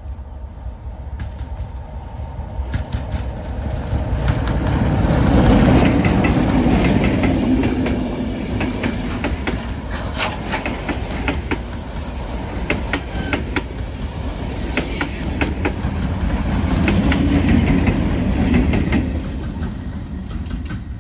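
Diesel locomotive passing close by at the head of a passenger train: the engine grows loud as the locomotive goes past about five seconds in. Then the coach wheels click over rail joints as the coaches roll by, and the sound swells again near the end.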